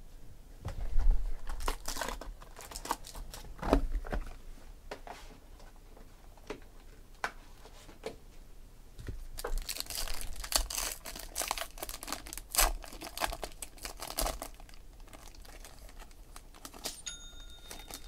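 Shiny foil wrapper of a trading-card pack crinkling and tearing as it is ripped open by hand. There are a few knocks and rustles in the first few seconds, and a faint short tone near the end.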